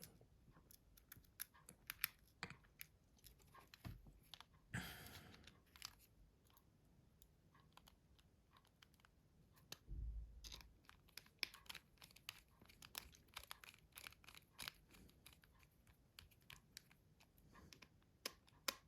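Faint, scattered small clicks and ticks of a precision screwdriver and tiny screws being worked into the plastic housing of a Nokia C2-06, with a brief scraping rustle about five seconds in and a dull bump near ten seconds.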